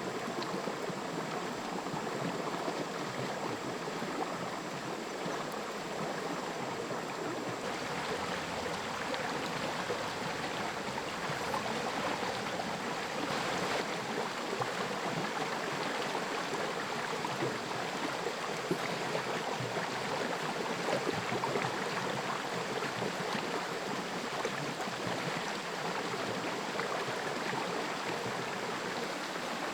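Forest stream flowing, a steady continuous rush of water.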